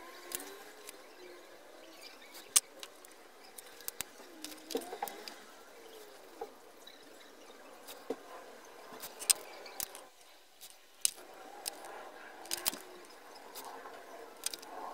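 Soldering iron and tweezers working bare copper wire onto transistor legs: scattered sharp clicks and ticks of metal touching metal over a faint hiss. The sharpest click comes about two and a half seconds in.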